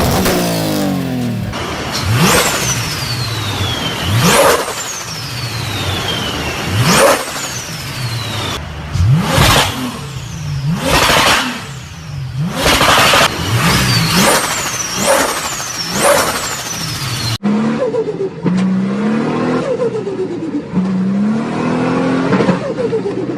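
Turbocharged straight-six engine revved again and again. After each blip of the throttle, a high turbo whistle falls away and the turbo flutters as the throttle snaps shut. Near the end a cut brings in another turbo car accelerating with a rising engine note.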